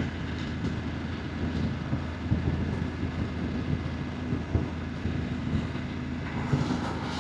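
BMW F900GS motorcycle's parallel-twin engine running steadily while riding, with some wind on the microphone.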